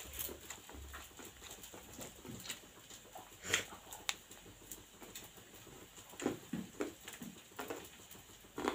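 Close-up eating sounds: wet chewing and lip smacking, with fingers squishing and mixing rice on a steel plate, heard as a string of irregular smacks and clicks.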